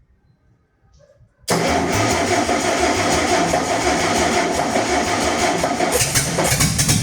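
IKA Tornado 380 straight-six engine being turned over on the starter, kicking in suddenly about a second and a half in and running loud and steady. About six seconds in the sound gets deeper.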